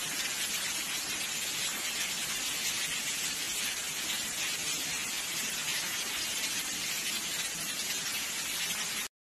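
A steady, loud hiss of heavy rain and rushing water during a violent storm, cutting off abruptly near the end.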